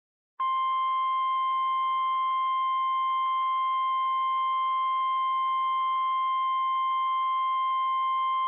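NOAA Weather Radio warning alarm tone: a single steady high tone that starts about half a second in and holds unbroken, signalling the severe thunderstorm warning that follows.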